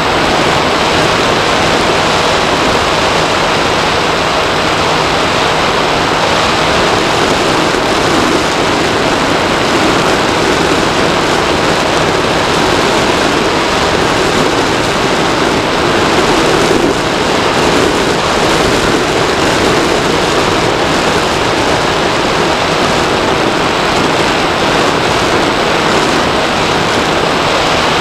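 Steady rush of airflow over the onboard camera of a Bixler 2 RC plane in flight, with faint steady tones underneath, likely from its electric pusher motor.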